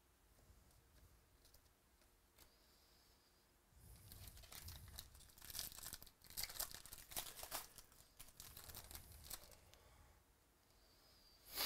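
A card pack's wrapper being torn open and crinkled in the hands: quick crackly tearing that starts about four seconds in and lasts several seconds.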